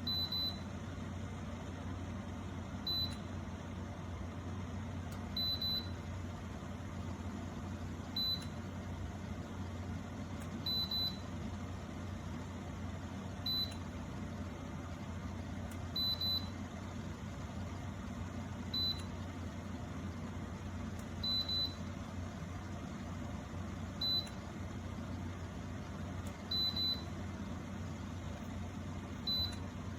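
Vianté electric kettle's control panel beeping: short high beeps about every two and a half seconds, some of them doubled, over a steady low hum.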